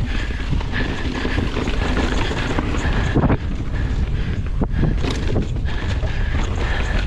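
Mountain bike descending a rough trail at speed, with heavy wind noise on the microphone, the rattle of the bike over the ground, and several sharp knocks from the tyres and frame over bumps. A high buzzing note comes and goes throughout.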